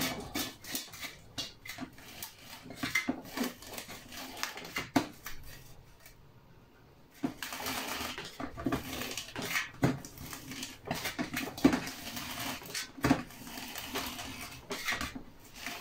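Elastic meat netting being stretched and worked down over a stainless steel tube applicator: irregular light taps, scrapes and rustles of the net and hands against the metal tube, with a short lull about six seconds in.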